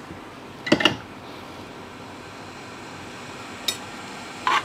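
Three short clinks of small tools being handled at a workbench, the loudest about a second in, over a steady background hum.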